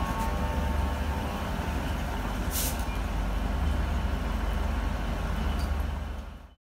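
InterCity 225 train, a Class 91 locomotive with Mark 4 coaches, rolling along the platform with a steady low rumble of wheels on rails. A short hiss comes about two and a half seconds in, and the sound stops abruptly near the end.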